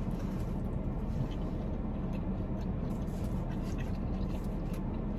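Steady low rumble of an idling car engine, with a few faint crunches of chewing crispy fried fish.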